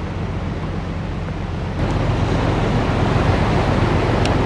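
Wind rumbling on the microphone over the wash of sea waves on a rocky shore, steady and growing louder about two seconds in.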